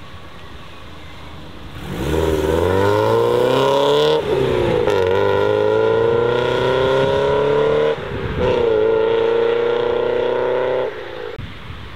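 Car engine accelerating hard from about two seconds in. It rises in pitch through three gears, with an upshift and brief drop in pitch at about four seconds and again at about eight seconds, then cuts off sharply near the end.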